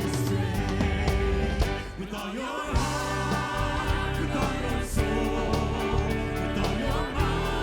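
Live worship music: a band with bass, drums and steady beat playing while a congregation sings, between sung lines of the song.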